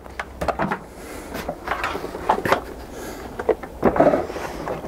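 Irregular plastic knocks and clatters as a Nilfisk Aero 26 wet-and-dry shop vacuum, switched off, is handled and set in place, with a louder bump about four seconds in.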